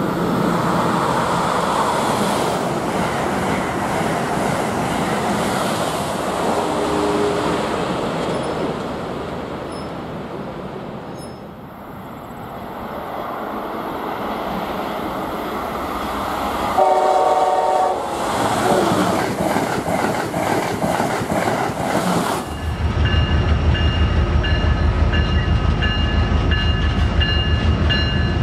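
Amtrak Acela Express high-speed electric trains passing through a station with a steady rush of wheels and air. The horn sounds as the first train approaches and again about seven seconds in. A second Acela's higher horn chord sounds about 17 seconds in as it comes through. Near the end the train sound gives way to music with a steady beat.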